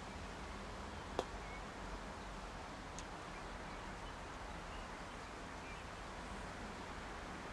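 A single sharp click about a second in: a croquet mallet striking a ball. A fainter tick follows a couple of seconds later, with birds chirping faintly over steady outdoor background noise.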